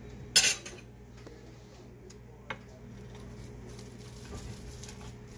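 A sharp metallic clatter about half a second in, then a wheel pizza cutter rolling through the baked crust on a pizza stone, with a single click partway through.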